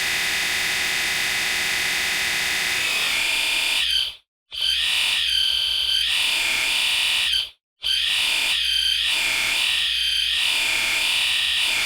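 Screech sound effect: a sustained, harsh high-pitched screech that shifts higher about three seconds in and then wavers up and down slowly. It cuts out completely twice, briefly, about four and seven and a half seconds in.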